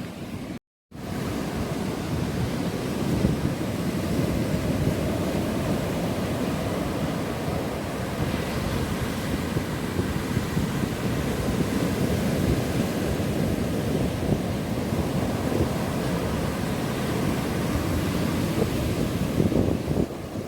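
Ocean surf breaking and washing on a beach, mixed with strong wind buffeting the microphone: a steady rushing noise, heaviest in the low end. The audio cuts out completely for a moment about a second in.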